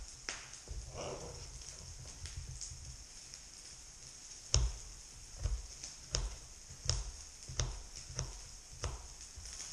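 Knife chopping an onion on a cutting board: a few scattered knocks, then a steady run of chops about one and a half a second from about halfway through. A steady high hiss runs underneath.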